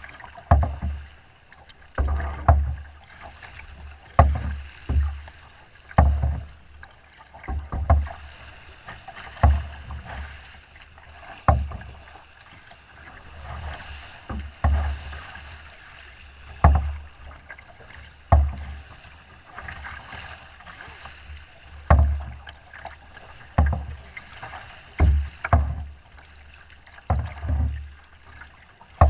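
A small boat's hull thudding and slapping into wind-driven chop about every one and a half to two seconds, with water splashing and rushing along the hull between the thuds.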